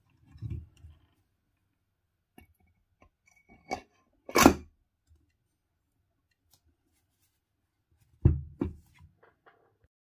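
Knocks and clacks of a washing-machine motor being reassembled by hand, its brushless rotor fitted back into the metal housing: a dull thud about half a second in, a click, then a sharp clack a little before halfway that is the loudest, and two quick knocks near the end.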